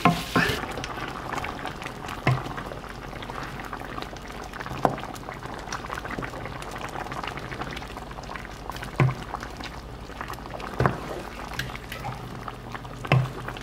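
Vegetables simmering in a sauce in a pan, bubbling steadily, with a spoon knocking against the pan about six times.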